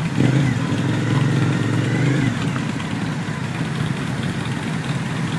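A motorcycle engine revving up and holding for about two seconds, then dropping away, over the steady hum of idling engines.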